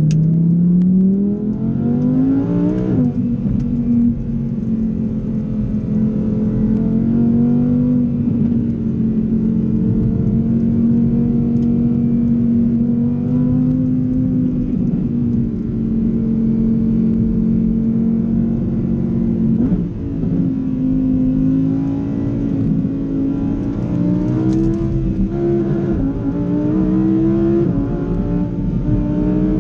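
Lamborghini Huracán Evo's naturally aspirated V10, heard from inside the cabin, revs up in second gear and drops in pitch as it upshifts to third about three seconds in. It then runs at a steady pitch, with a brief break in the sound about twenty seconds in before the revs climb slowly again.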